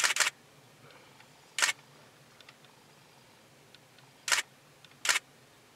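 Still-camera shutter firing four times: once at the start, again about a second and a half in, then twice close together near the end.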